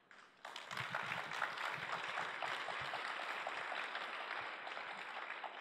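Audience applauding: many hands clapping together, starting about half a second in and dying down near the end.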